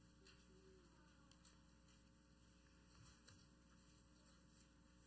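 Near silence: room tone with a faint steady mains hum.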